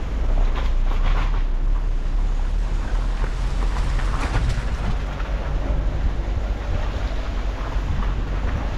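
Car driving slowly over a rough dirt and gravel lane: a steady low rumble of engine and tyres, with wind buffeting the microphone.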